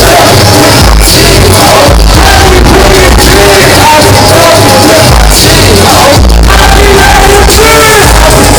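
Live hip-hop performance through a concert PA in a large hall: a loud, pulsing bass-heavy beat with rappers' voices over it.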